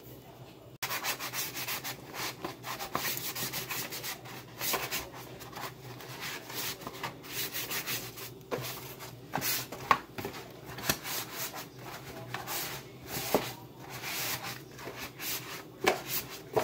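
Cloth dish towel rubbing over plates as they are dried by hand, a dense scratchy rubbing that starts abruptly about a second in, with a few light knocks of the dishes.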